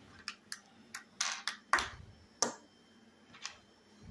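Light clicks and taps of a small screwdriver and loose metal parts being handled and set down on a wooden tabletop, about eight in all, a couple with a short scrape.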